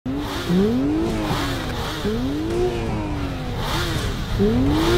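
Performance engine revved at the drag-race start line before launch: three throttle blips, each rising in pitch and sinking back, over a steady low idle rumble.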